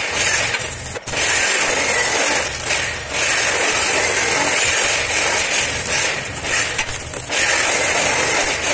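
Stick (arc) welding on a steel window grill: the electrode's arc crackling and hissing loudly, with a few short breaks as the arc stops and is struck again.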